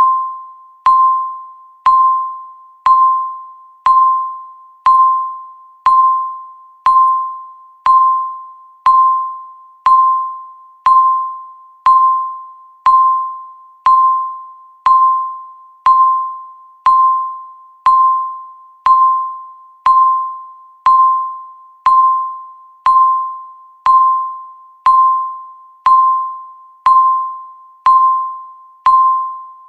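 Electronic countdown-timer beep: a single clear tone struck once every second, each one starting sharply and fading out before the next, ticking off the seconds.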